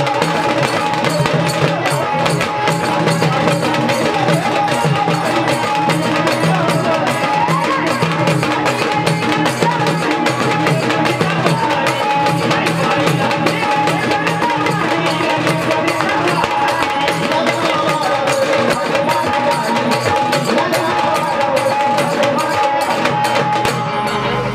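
Instrumental gondhal music: a sambal, the paired gondhal drum, played fast with sticks in an even rhythm, with a second drum and a few held notes underneath.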